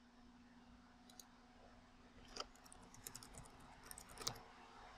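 Faint computer mouse clicks and keyboard typing, a few single clicks and then two quick runs of keystrokes, over a faint steady hum.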